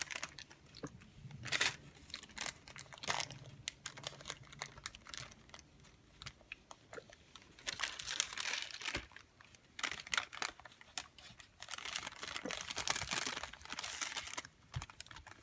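Parchment paper crinkling and rustling as a household iron is pressed and slid over it, with scattered light clicks and taps. The rustling is heavier about halfway through and again near the end.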